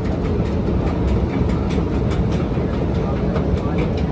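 Escalator running with a steady low rumble amid the hum of a station hall, with faint scattered clicks.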